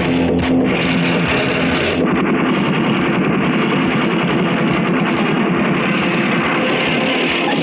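Film soundtrack: rock-style background music, joined about two seconds in by a dense, continuous clatter of gunfire.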